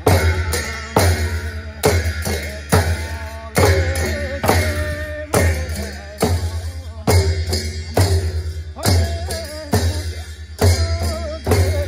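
Gurung shamans' handled frame drums beaten in a steady dance rhythm, about one heavy beat a second with lighter strokes between, with hand cymbals clashing and ringing.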